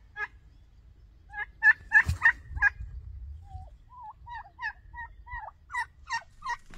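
Domestic turkeys calling: a fast run of loud calls about a second and a half in, then a string of shorter calls.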